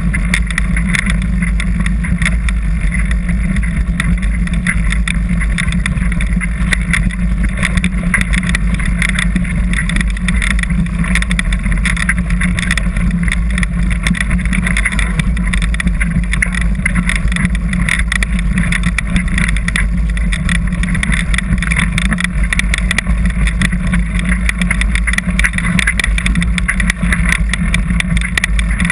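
Mountain bike descending a rough dirt trail, heard from a camera mounted on the bike: a steady roar of wind and rolling noise on the microphone, full of quick rattles and knocks as the bike shakes over the ground.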